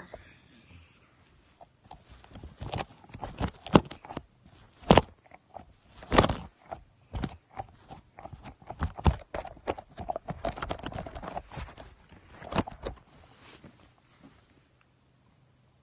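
Irregular knocks and scraping rubs of a shark hand puppet bumping against and rubbing over the phone's microphone. The handling noise is close and loud, and it dies away near the end.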